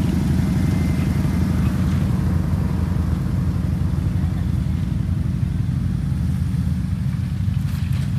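Steady low rumble of a 2022 Ford Maverick FX4 pickup driving, its 2.0-litre turbocharged four-cylinder running at an even pace with no revving.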